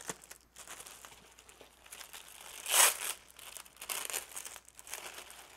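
Clear plastic bag crinkling and rustling as a network video recorder is unwrapped from it by hand, in a run of rustles with the loudest about halfway through.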